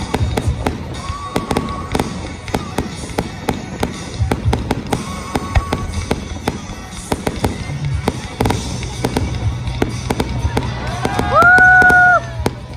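Aerial fireworks going off in rapid succession: a dense run of sharp bangs and crackles over a steady low rumble. Near the end a loud whistling tone slides up, holds steady for about a second and then cuts off abruptly.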